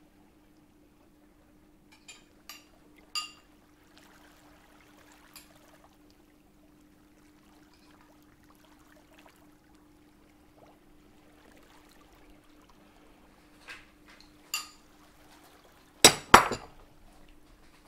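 Glass kitchenware clinking during food preparation: a few light ringing clinks, two more a while later, then two loud sharp knocks just before the end, over a faint steady hum.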